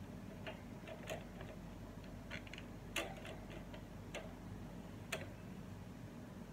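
Light clicks and taps of a wall fan's plastic grille rim and wire guard being handled and fitted together by hand, about seven separate clicks with the sharpest about three seconds in.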